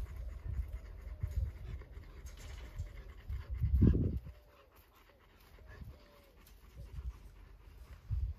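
An animal panting in quick, low breaths, with one louder huff about four seconds in and softer breaths after it.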